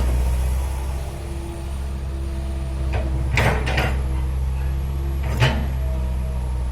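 Excavator's diesel engine running steadily under load, with a few sharp metallic clanks about three seconds in and again near the end.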